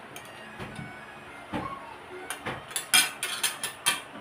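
Sounds of a person eating fish and rice with bare hands from ceramic plates: a quick run of sharp clicks and smacks starting about a second and a half in, loudest around three seconds in.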